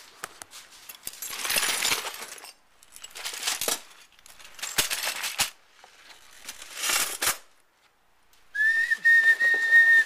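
Objects being rummaged through in plastic storage bins: rustling and clattering in uneven bursts with a few sharp clicks. Near the end a person starts whistling a long steady high note.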